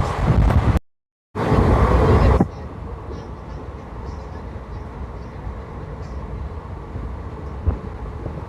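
Passenger train running at speed, heard from aboard: loud wind and rumble, cut off by a brief silent gap about a second in, then after about two and a half seconds a quieter steady rumble of the coaches rolling on the track.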